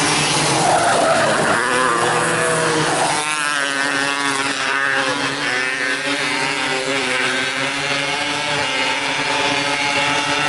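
Several 270cc micro sprint car engines racing together at speed, their pitch rising and falling as the cars accelerate and back off.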